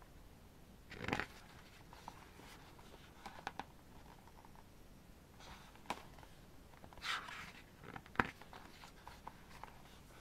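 Pages of a K-pop album photobook turned and handled by hand: a few soft paper swishes and light taps spread through, the sharpest tap about eight seconds in.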